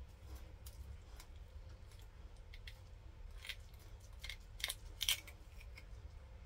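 A two-part mould being pulled apart by hand to free a resin casting: a faint low handling rumble with scattered sharp clicks and crackles, the loudest about five seconds in.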